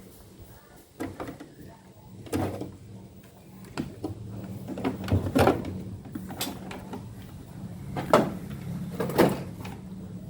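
Several separate knocks and clunks of hard objects being handled and set down, over a steady low hum.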